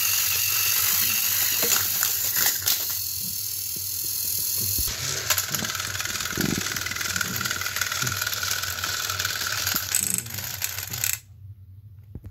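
Battery-powered Thomas & Friends toy engines running their motors, whirring with clicking and rattling gears as two engines push against each other on plastic track. The sound changes abruptly about five seconds in, carries a steady whine after that, and cuts off suddenly near the end.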